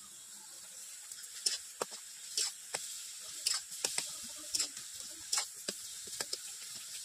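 Tomato curry cooking in a steel kadai over a wood fire: a steady hiss with irregular sharp pops and crackles, about two a second.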